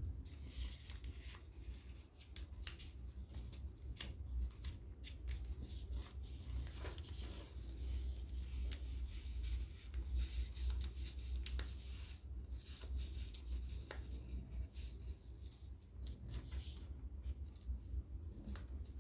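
A sheet of paper being handled, folded and creased by hand: rustling, rubbing and short sharp crease sounds over a steady low hum.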